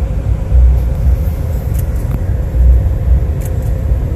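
Low, uneven rumble inside the cabin of a Porsche Macan rolling slowly over a gravel track, with a few faint ticks.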